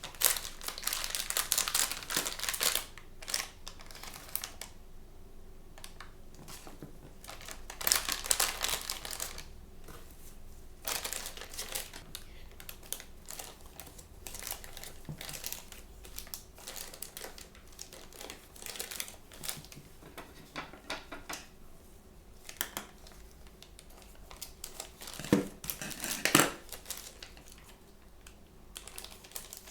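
Plastic toy packaging being handled and torn open: crinkling and rustling in irregular bursts, loudest near the start, about a third of the way in, and near the end.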